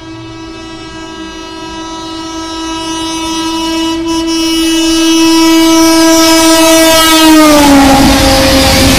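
Indian express train's horn held in one long blast as the train approaches at speed, growing steadily louder, then dropping in pitch about seven and a half seconds in as the locomotive passes. The rushing noise of the coaches going by follows.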